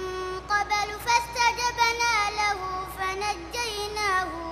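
A boy reciting the Quran in a melodic tajweed style: long held notes that glide and waver in pitch, with short pauses between phrases.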